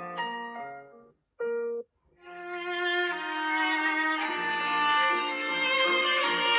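Samsung Galaxy S23 ringtones played one after another: one melody fades out about a second in, a short single note sounds, and after a brief silence another ringtone begins, a sustained violin-like string melody that builds up.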